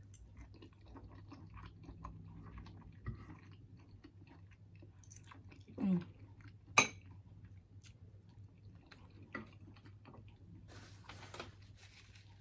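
Close-up chewing and mouth sounds of someone eating, with soft wet smacks throughout. A single sharp click about seven seconds in is the loudest sound, and short hissy breaths come near the end.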